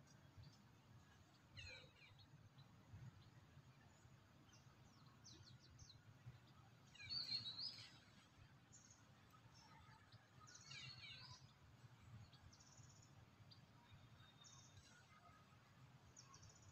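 Quiet outdoor ambience with scattered short bird calls. The loudest is a burst of chirps about seven seconds in, with another cluster about eleven seconds in.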